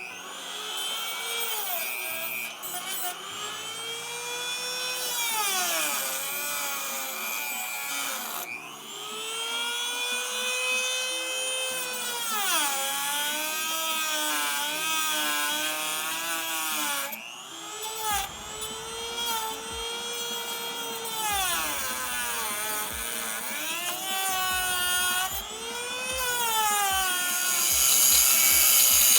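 Power grinder cutting the pin heads off a motorcycle drive chain link. Its whine repeatedly sags in pitch as it is pressed into the steel and climbs back as the pressure eases, about every four seconds, with a rising grinding hiss near the end.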